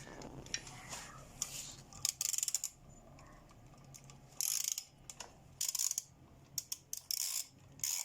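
Ratchet wrench with extensions and an 8 mm socket clicking in short runs as it backs out a bolt on a motorcycle's front sprocket cover.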